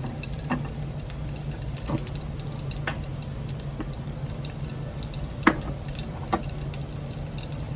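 Hot frying oil in a pan crackling with a few scattered sharp pops, over a steady low hum.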